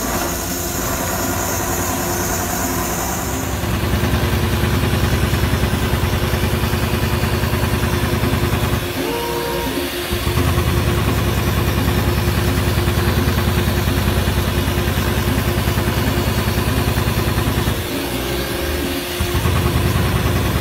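Richpeace automatic perforation and sewing machine running at speed, its needle head punching in a rapid, even rhythm, with two short pauses about nine and eighteen seconds in.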